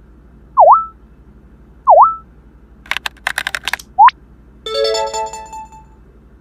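A string of short electronic sound effects: two quick tones that dip and spring back up, a rapid clatter of clicks like keys being typed, a short upward blip, then a bright ringing chime like a message alert that fades over about a second.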